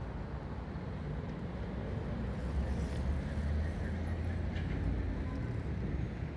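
Low, steady rumble of city traffic, swelling for a few seconds near the middle.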